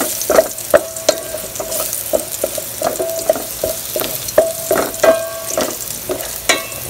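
Minced garlic sizzling in hot oil in a metal pot while a wooden spatula stirs it. The spatula knocks and scrapes against the pot about two or three times a second, and the pot rings briefly with each knock. The garlic is being browned before the onion goes in.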